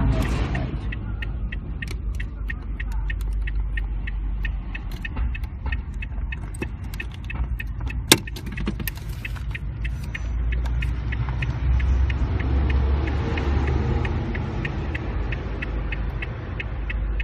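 Hazard switch on and the turn-signal flasher relay clicking steadily, a few clicks a second, over a low steady hum. One louder sharp click comes about eight seconds in.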